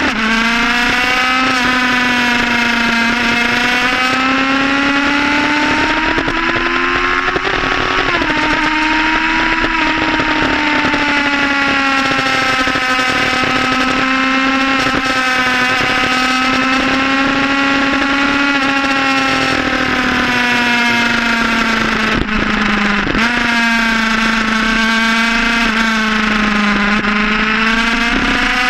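Sport motorcycle engine running at high revs under way, its pitch rising and falling with the throttle. There is a gear change about 8 seconds in and another break in the note about 23 seconds in.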